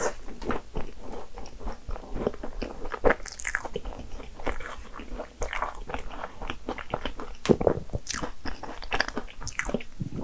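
Biting and chewing a biscuit choux, a cream puff with a crisp cookie crust, with many short crackles of crunching throughout.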